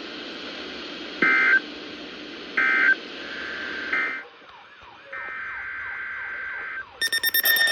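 Emergency Alert System end-of-message data tones: three short, warbling digital bursts about a second and a quarter apart over radio hiss, marking the close of the tornado warning. After a break, a longer data burst of about a second and a half follows. A loud alert with several tones begins near the end.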